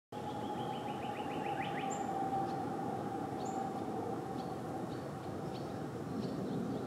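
Outdoor background: a steady hum with a constant mid-pitched tone, overlaid by small birds chirping. A quick run of chirps comes in the first two seconds, then scattered short chirps.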